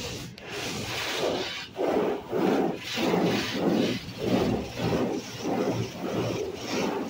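Automatic car wash brushes scrubbing over the car, heard from inside the cabin: a rhythmic swishing and rubbing that comes about twice a second.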